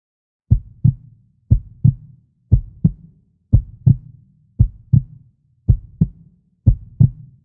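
A heartbeat sound, a slow double thump (lub-dub) repeating about once a second, seven beats in all.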